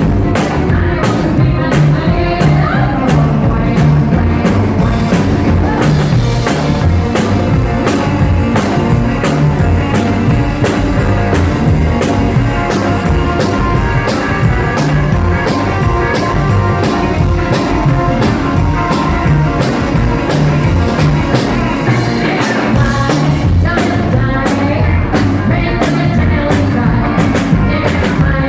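Live rockabilly band playing a song, with a drum kit keeping a steady beat under guitar and bass.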